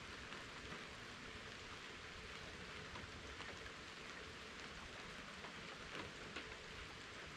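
Steady rain falling: a soft, even hiss with a few louder drops ticking now and then.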